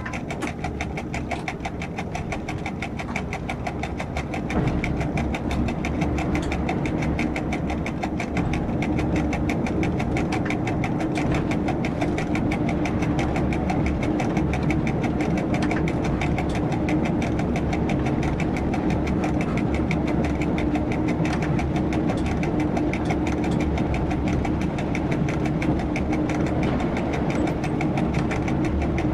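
Diesel railcar's engine heard from the driver's cab, running steadily with a rapid, even beat. It grows louder about four and a half seconds in and again near eight seconds, then holds.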